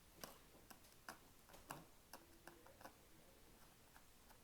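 Faint, irregular small clicks, about two a second, of a size 1 Phillips screwdriver turning the screw that holds the battery cover on a TI-84 Plus CE calculator.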